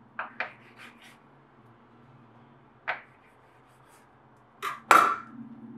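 Metal bench scraper cutting through dough and striking the countertop: a few light clicks at first, a sharp tap about three seconds in, and two louder knocks close together near the end.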